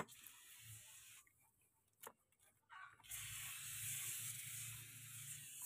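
Aerosol can of foam engine cleaner spraying. A sharp click at the start and another about two seconds in come with short spurts, then from about three seconds in a steady hiss of spray.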